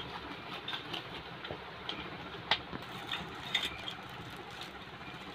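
Plastic wrapping crinkling and small gold-coloured metal cups and dishes clinking as they are handled and lifted out of a cardboard box, with scattered light clicks, the sharpest about two and a half seconds in, over steady background noise.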